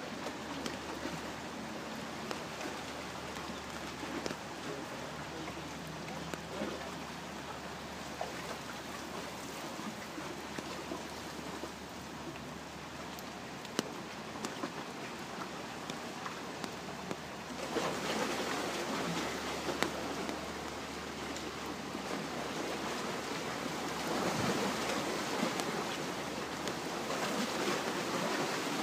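Lake water rushing and splashing alongside the paddle steamer Vevey as it moves, a steady noise that grows louder about two-thirds of the way through.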